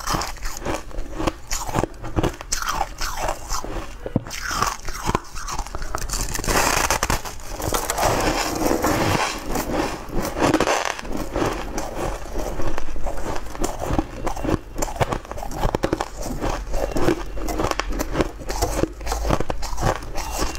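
Biting off and chewing mouthfuls of frost-covered block ice, sharp crisp crunches and crackles over and over. There is a denser run of crunching about a third of the way in.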